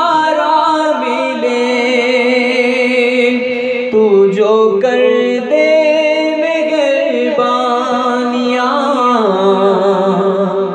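Male voice singing an Urdu naat, drawing out long, slowly gliding held notes over a steady layered vocal backing.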